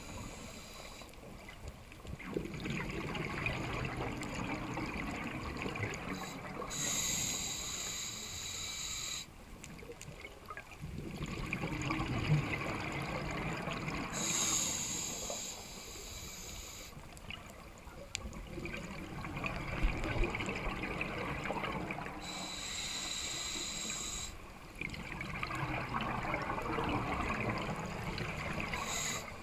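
Scuba diver breathing through a regulator underwater: a rush of exhaled bubbles lasting a few seconds, then a short hissing inhale through the demand valve, the cycle repeating about every eight seconds.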